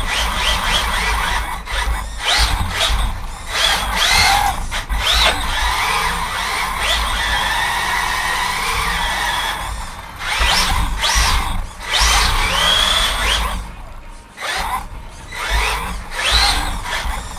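Brushless electric motor of an LRP S10 Blast SC radio-controlled short-course truck whining up and down in repeated throttle bursts, with tyres scrubbing and squealing on a smooth floor as it drifts in donuts. The bursts ease off briefly about fourteen seconds in.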